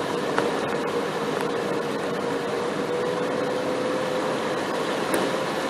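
Steady vehicle noise: a constant hiss with a humming tone that rises slightly in pitch.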